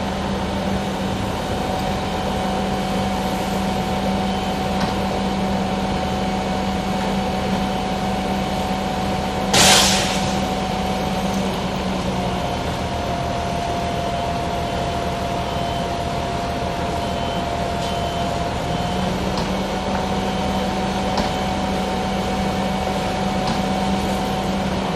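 Fire engine running steadily with a constant drone and whine whose pitch shifts slightly a couple of times, with one brief loud hiss about ten seconds in.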